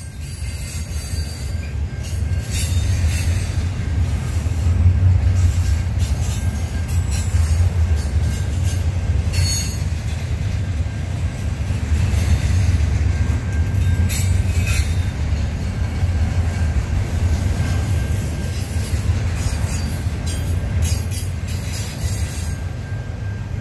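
CN freight train rolling past on the rails: a steady low rumble that builds over the first few seconds, with brief high wheel squeals cutting in now and then.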